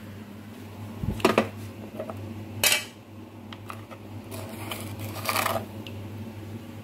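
Knocks and clacks of a kitchen cabinet and a hard plastic salt container being handled: a few knocks about a second in, one sharp clack near three seconds, and a short scrape about five seconds in, over a steady low hum.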